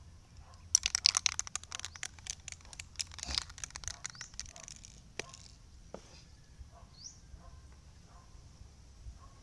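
Aerosol spray paint can being shaken: its mixing ball rattles in fast, loud clicks for about four seconds. Then one sharp click as the cap comes off.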